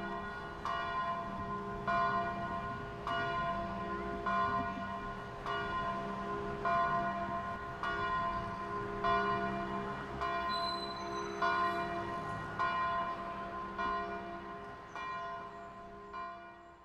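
Bells tolling at an even pace, a stroke roughly every second and a quarter, each one ringing on into the next; the sound fades out at the end.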